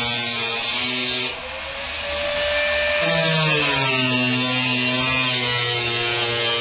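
Electric power drill running continuously, its whine shifting in pitch as the speed and load change.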